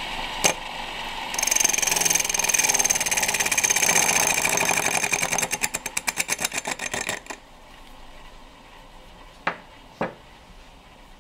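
Homemade mini wood lathe running, with a turning tool cutting into the spinning wooden blank: a loud scraping cut with a high whine, then a rapid pulsing scrape about five times a second that stops sharply. The lathe motor then runs on more quietly, with two sharp taps near the end.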